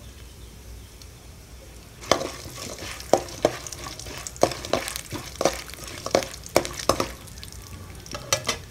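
Mustard seeds, cumin, chana dal, urad dal and peanuts sizzling gently in hot groundnut oil in a metal pan. About two seconds in, a perforated metal ladle starts stirring them, scraping and clicking against the pan a dozen or so times, with two more clicks near the end.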